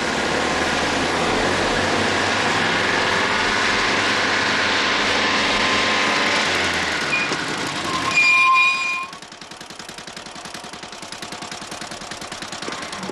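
Vehicle engines running at road speed, then a horn sounds for about a second, the loudest thing here. After that the engine noise drops to a quieter, evenly pulsing idle as the motorcycle and car come to a stop.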